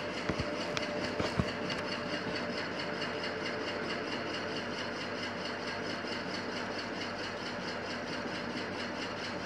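Steady mechanical background hum and hiss, with a few small clicks in the first second and a half.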